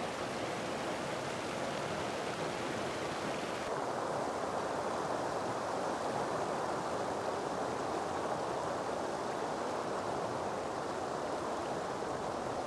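Steady rush of flowing river water. A few seconds in the sound turns abruptly duller, losing its upper hiss.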